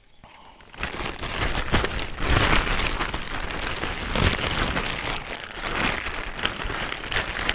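Plastic wrapping crinkling and rustling as it is pulled off a rolled-up electric poultry net, starting about a second in.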